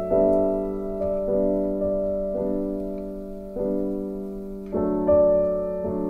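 Background music: soft piano chords, a new chord struck about every second and left to ring and fade.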